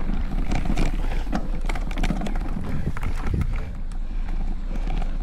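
Specialized Stumpjumper Evo mountain bike being ridden over a rough trail, picked up by a handlebar-mounted camera: a steady low rumble of wind and tyres with frequent sharp clicks and rattles from the bike.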